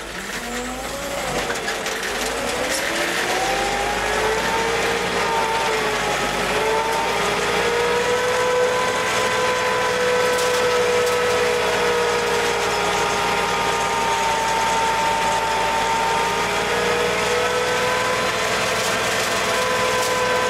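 GMC C7000 dump truck's engine heard from inside the cab, revving up over the first few seconds and then holding steady, high revs under load as the truck pushes forward through deep snow.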